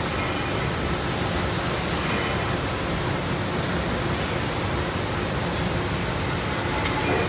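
Steady industrial noise of a running shock-absorber production line: an even, unbroken rush across all pitches, with no single machine standing out.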